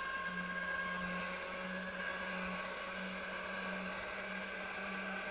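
Electric motor attachment of a roller pasta machine running steadily, a low, even whir as it turns the rollers that knead the pasta dough.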